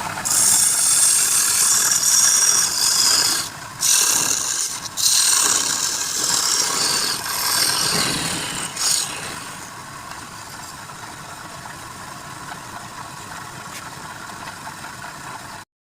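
Wood lathe running with a turning tool cutting the spinning wood: a loud hissing scrape with two short breaks about 3.5 and 5 seconds in. After about 9 seconds the cutting stops and the lathe runs on more quietly, until the sound cuts off abruptly near the end.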